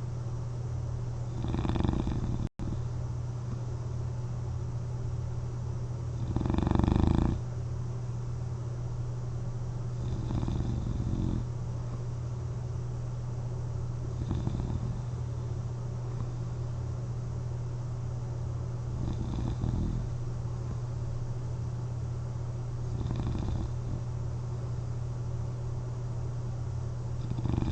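A person sleeping on their back with a CPAP mask on, snoring softly in a slow rhythm, one snoring breath about every four seconds, over a steady low hum. The swell about six to seven seconds in is the loudest.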